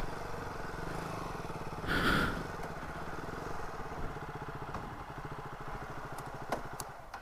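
Motorcycle engine idling steadily, with a brief higher-pitched sound about two seconds in.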